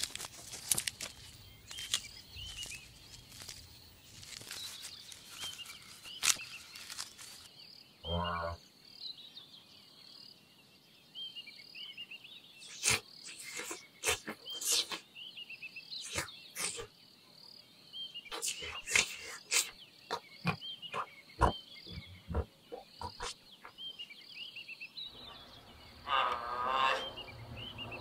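Giraffe vocalisations: a short low-pitched call about eight seconds in, and a longer, higher call near the end, amid scattered sharp clicks and snaps. High chirping runs in the background.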